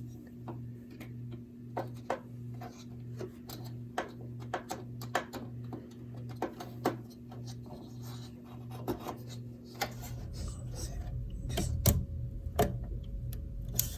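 Scattered light clicks and taps of a DDR5 RAM stick being handled and pressed into a motherboard DIMM slot and its plastic latches, over a low hum that pulses steadily. From about ten seconds in a low handling rumble joins, with a louder click near twelve seconds in.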